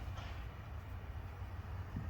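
Faint, steady low rumble with a light hiss: background hum of the shop, with no distinct tool or work sound.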